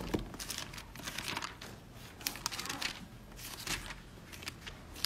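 Paper pages being leafed through: a run of short, crinkly rustles, with a dull bump at the very start.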